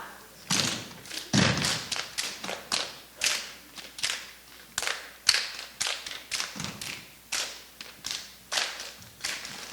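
Step team stepping: a quick rhythmic run of stomps, claps and body slaps, several sharp hits a second, with a few heavier low foot stomps among them.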